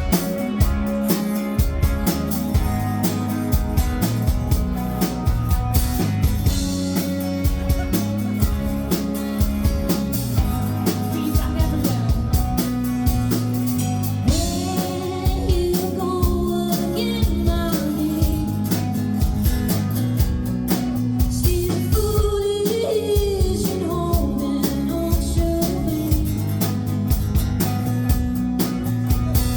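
A live band playing a rock song: drum kit keeping a steady beat under bass and guitar. A singer's voice comes in about halfway through and carries the melody to the end.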